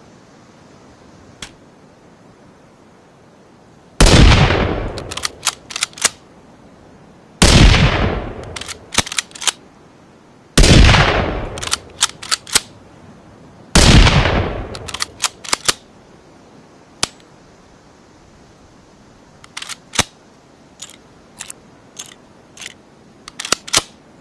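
Hybrid rifle gunshot sound effect, blending a Ruger American rifle with a rimfire rifle. Four loud shots about three seconds apart, each ringing off with a long tail and followed by a quick run of sharp mechanical clicks. Near the end comes a scatter of quieter clicks.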